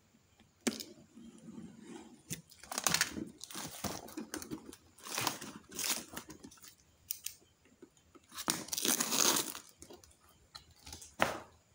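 Plastic wrapping being sliced with a utility knife, torn and crinkled off a hard plastic tool case, in irregular rustling bursts with a few sharp clicks and knocks as the case is handled and opened.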